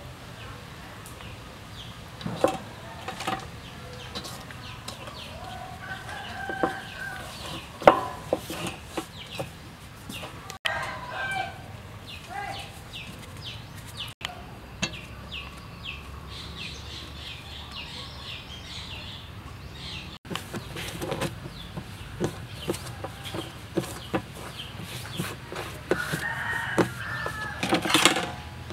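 Chickens clucking with a rooster crowing, one longer crow near the end, over frequent taps and knocks of dough being worked on a metal tray.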